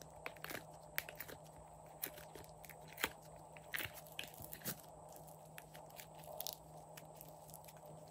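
Slime being squeezed out of a silicone honeycomb mold and then stretched and twisted by hand, giving a run of small sticky clicks, pops and crackles. The clicks are busiest in the first half and thin out after about five seconds.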